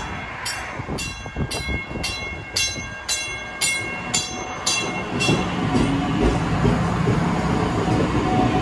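South Shore Line electric multiple-unit train arriving at a station platform. A bell rings steadily about twice a second and stops about five seconds in. Then the rumble of the train's wheels and the hum of its motors grow louder as the cars pass close by.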